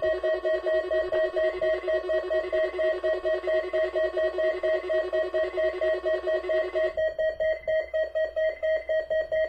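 A weather radio's alert alarm beeping rapidly, about four beeps a second, over the broadcast's steady warning tone. The steady tone cuts off about seven seconds in while the beeping goes on. This is the alert activation of the weekly test of an alert-equipped weather radio.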